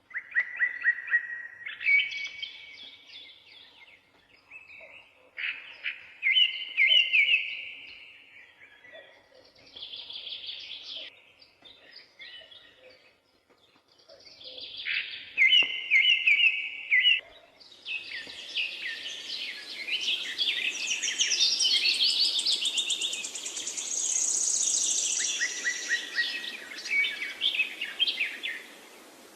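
Birds chirping in short repeated phrases with quiet gaps between them. In the second half the calls grow into a busier, overlapping chorus over a steady hiss.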